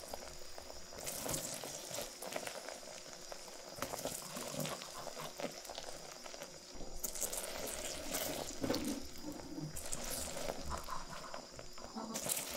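Sugar syrup boiling and crackling in a saucepan as a skewer of peeled mandarins is turned through it to coat the fruit in candy for tanghulu. The bubbling swells louder a few times.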